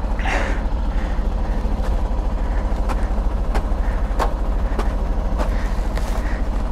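Hero Xpulse 200 4V's fuel-injected single-cylinder engine idling steadily on a cold start after a night of snowfall, with faint regular ticks.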